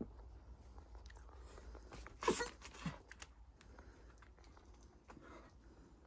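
Faint scuffing and rustling of a climber's hands and shoes on the rock, with a short sharp vocal sound about two seconds in that falls in pitch, and a smaller one about half a second later.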